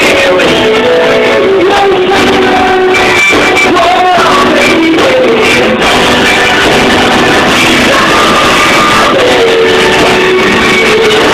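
A live band playing amplified music with a lead vocal, picked up loud on a cellphone microphone in front of the stage speakers.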